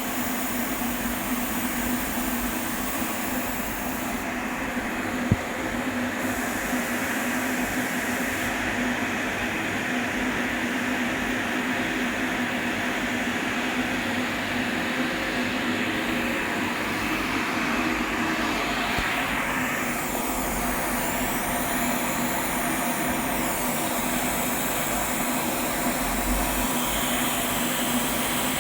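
Steady hiss of stainless-steel welding on a capping pass, over a constant low hum from the welding equipment. A single sharp click comes about five seconds in, and the hiss changes in tone a few times as arcs stop and start.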